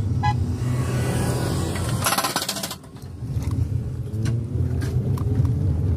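Inside a hatchback driving slowly over a rough, rocky dirt road: a steady low rumble from the tyres and engine, with scattered light clicks and rattles. A short harsh rattle comes about two seconds in.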